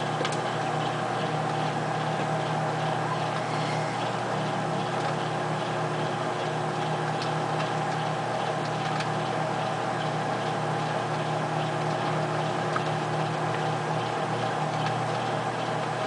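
Microwave oven running with a calculator inside: a steady electrical hum with a faint, regular ticking, and now and then a single sharp click.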